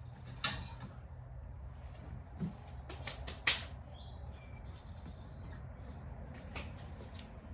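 Seat foam and padding being handled and laid in place: scattered rustles and a few sharp clacks over a steady low hum.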